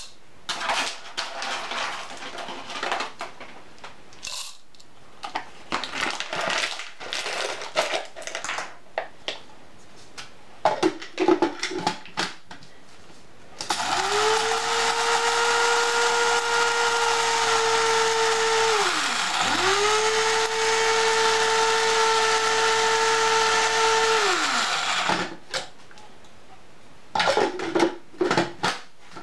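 Coffee beans being spooned into a De'Longhi electric blade coffee grinder with light clicks and rattles. Then the grinder's motor whirs at a steady pitch in two runs of about five seconds each, grinding the beans, its pitch falling as it winds down after each run.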